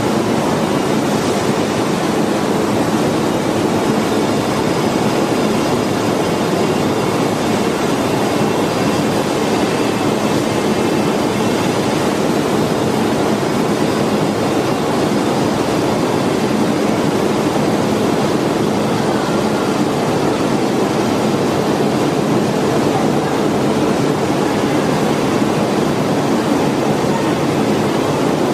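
Steady rushing noise of a factory paint shop, even and without distinct knocks or voices.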